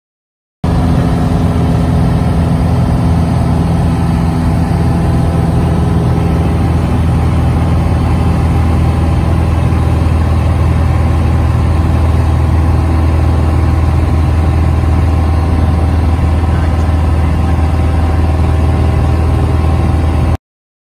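Light single-engine piston airplane's engine and propeller running steadily at cruise power, a constant low hum. It cuts in abruptly about half a second in and cuts off abruptly just before the end.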